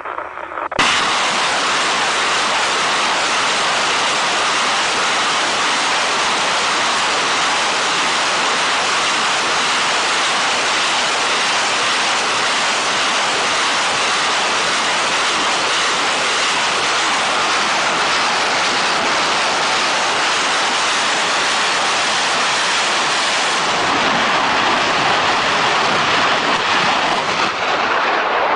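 Continuous rushing roar of a salvo fired by a line of truck-mounted multiple rocket launchers. It starts abruptly about a second in, holds steady, and grows a little louder near the end.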